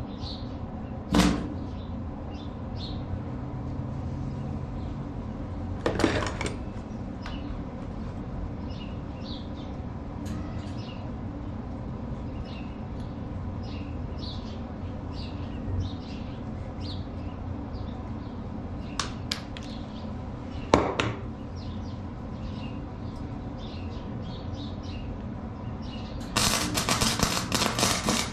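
A few sharp knocks over a steady low hum, then near the end the Forney FC125 flux-core welder's arc strikes and crackles loudly and steadily as a bead is run.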